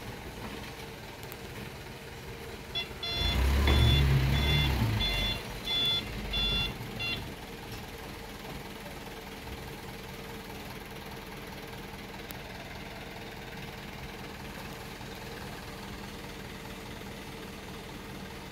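Dump truck's diesel engine revving as it reverses, with its reversing alarm giving a run of short high beeps, about two a second, for some four seconds starting about three seconds in. The engine then settles to a steady idle.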